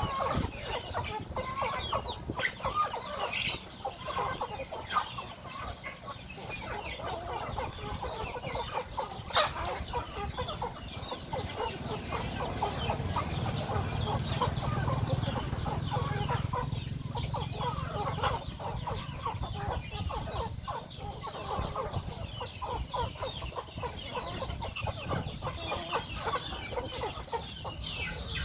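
A flock of chickens clucking continuously, many short overlapping calls, with one sharp click about nine seconds in.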